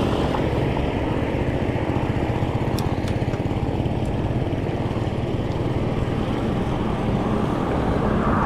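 Steady wind rumble buffeting an action camera's microphone while a mountain bike is ridden, mixed with tyre and road noise.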